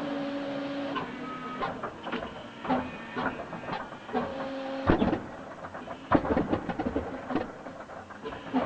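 An old helicopter engine being started, firing unevenly in irregular pops and clatter, with a steady tone that cuts in and out several times.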